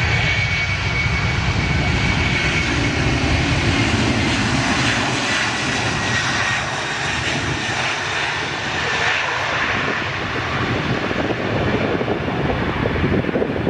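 Boeing 767-323ER's twin General Electric CF6-80C2 turbofans at takeoff power, a loud jet roar with a faint high whine in the first few seconds; the low rumble thins out about halfway through.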